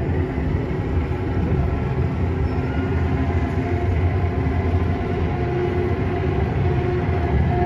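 Steady low rumble of a moving vehicle, with a few faint steady tones above it.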